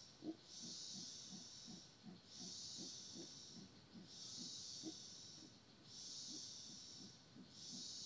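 Faint rainforest insect chorus: a high buzzing that swells and fades in long, even pulses about every two seconds, over a fainter, faster low pulsing of about three beats a second.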